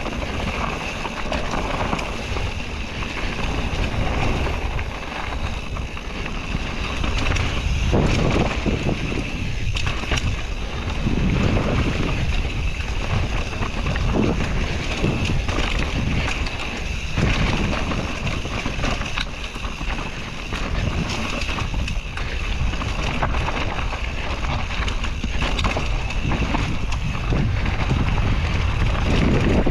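Mountain bike riding down a dirt trail: wind buffeting the camera microphone over the rumble of the tyres, with frequent short jolts and rattles from bumps.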